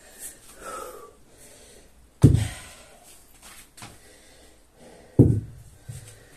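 A heavy training weight slammed down onto a rubber floor mat twice, about three seconds apart, each a loud heavy thud. Hard breathing and a short grunt come between the slams.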